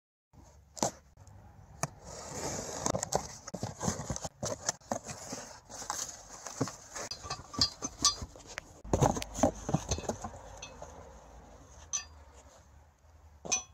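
Cardboard box being cut open along its tape with a knife, then packing paper rustling with many light clinks and knocks as metal parts are lifted out, and one louder thud about two-thirds of the way through.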